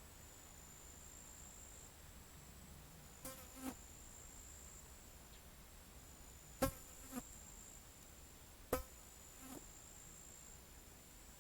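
A steady, high-pitched insect trill with brief breaks, over faint outdoor ambience. Three times, a pair of short, sharp sounds stands out above it, about half a second apart.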